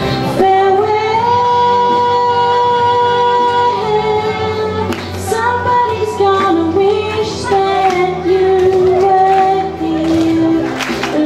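Female voice singing over instrumental backing: one long held note for about three seconds, then a wordless wandering melody line.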